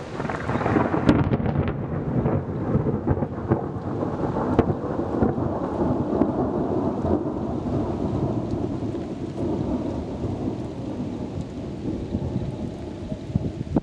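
Thunder: a crackling clap in the first two seconds that runs into a long rolling rumble, slowly fading.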